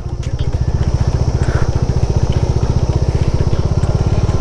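Motorcycle engine running with a steady, even beat of firing pulses.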